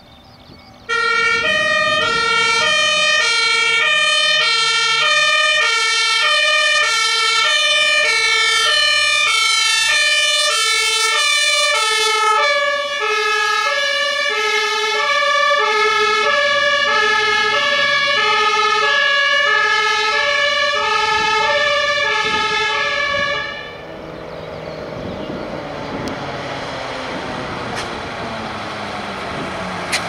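German fire engine's two-tone siren sounding its alternating high-low pattern as the truck approaches and passes, its pitch dropping slightly as it goes by. The siren starts about a second in and cuts off a little over two-thirds of the way through, leaving the truck engines and tyre noise on the road.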